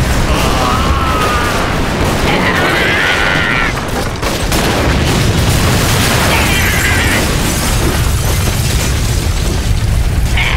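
Anime fight sound effects: a loud, continuous rumbling blast for a punch struck with a golden ball on the arm. A voice cries out in strain three times over it.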